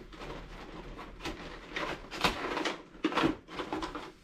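Cardboard box and plastic wrapping rustling and crinkling as a toy RC dump truck is unpacked by hand, with louder crinkles about two and three seconds in.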